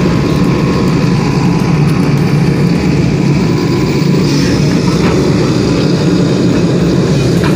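Diesel engine of a JCB tracked excavator running steadily under load, a loud, even low hum.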